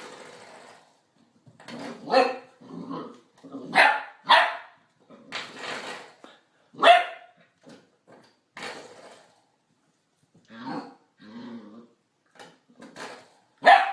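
A dog barking repeatedly, single barks with short gaps between them, some of them growly.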